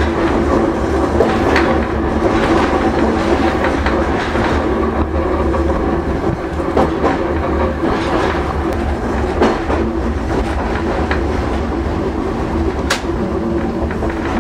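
Hankai Mo161-class tram car, a 1928-built car with nose-suspended traction motors, running at a steady speed. The steady gear-and-motor whine of that drive is heard inside the car, with scattered clicks of the wheels over rail joints and one sharp high click near the end.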